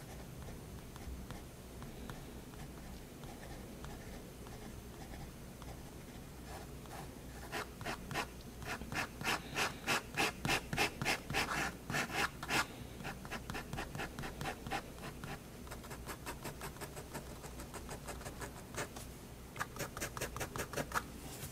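Staedtler 0.3 mm pigment liner scratching across sketchbook paper in quick short strokes, about four a second. The strokes come in a dense, louder run in the middle and again near the end, with softer, sparser strokes between.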